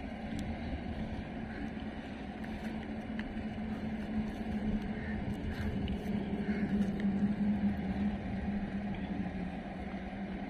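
A low, steady engine drone that grows louder past the middle and then eases off.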